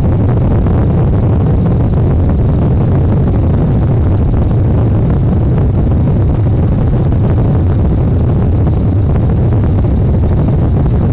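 Loud, steady low engine rumble with a noisy wash over it, unchanging throughout.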